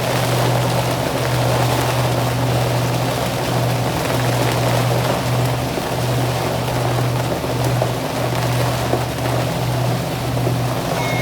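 Motor cruiser's engine running steadily under way, a constant hum, under a loud hiss of rain and water rushing past the boat in a thunderstorm.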